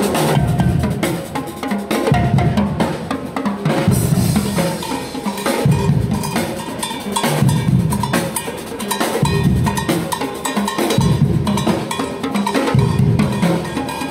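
Ensemble of LED-lit marching snare drums and large bass drums played live, with fast snare and rim strokes over heavy bass-drum accents that come about every two seconds.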